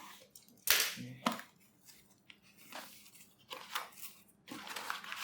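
A shipping package being opened by hand: packaging tearing and being handled, with one sharp snap about 0.7 s in and several smaller clicks and rustles after it.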